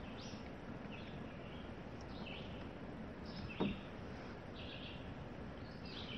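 A songbird singing short chirpy phrases about once a second over a faint steady outdoor background, with one sharp knock a little past halfway.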